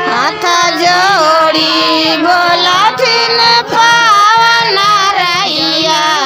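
A high female voice singing a Bhojpuri Chhath devotional song (chhath geet) in long, ornamented held notes over a steady low accompaniment.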